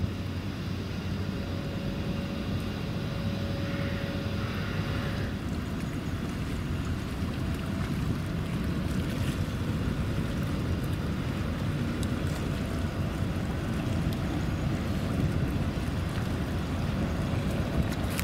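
Strong wind buffeting the microphone, a steady gusty rumble over the sea, with a faint steady hum that stops about five seconds in.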